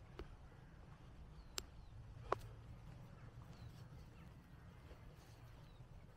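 Quiet countryside ambience: faint, short bird chirps over a low steady rumble, broken by three sharp clicks, the loudest about two seconds in.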